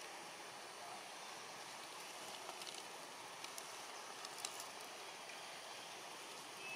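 Steady outdoor background hiss, with a few faint clicks about halfway through.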